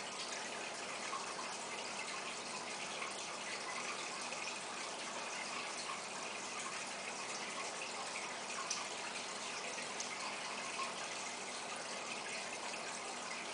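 Steady bubbling and trickling of aquarium water, from the air-driven sponge filter's bubble stream, with a few faint ticks.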